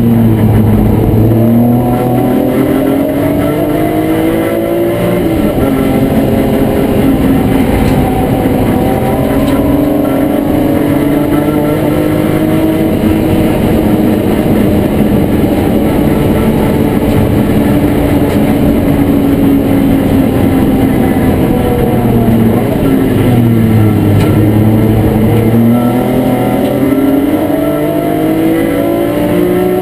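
BMW E36 M3 race car's straight-six engine at full racing load, heard from inside the stripped, roll-caged cabin. The engine note climbs with the revs and drops sharply at a gearchange about five seconds in. It then holds high, falls as the car slows about three quarters of the way through, and climbs again near the end.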